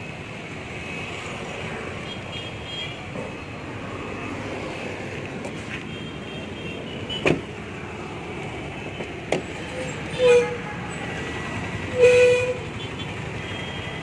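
Steady traffic noise with two sharp clicks, then short car-horn toots about ten and twelve seconds in.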